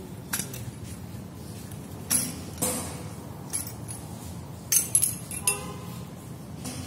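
Steel clutch parts of a Kamco power tiller clinking and knocking together as the clutch hub is worked out of the pressure plate: a string of short, sharp metal clinks, one about five and a half seconds in ringing briefly.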